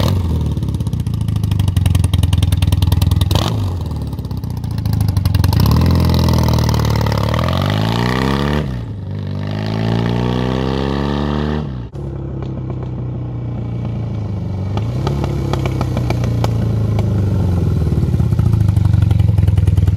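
BMW R100 air-cooled boxer twin engine of a motorcycle being ridden. The revs climb and drop back twice as it pulls away and accelerates. The engine then runs steadily, getting louder near the end as the bike rides back toward the listener.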